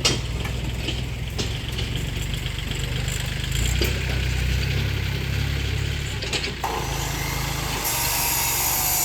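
An engine running steadily with a low rumble, with a few knocks from building work. About eight seconds in, a power tool starts up with a high whine.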